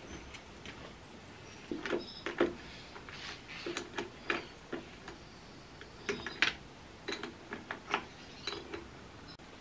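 Irregular clicks, knocks and clinks of hand tools and battery lead fittings being worked in a tractor's battery box while a battery lead is connected.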